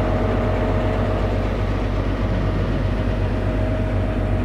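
Diesel locomotive of the Kalka–Shimla narrow-gauge train idling at a halt: a steady low engine hum with a constant higher tone over it.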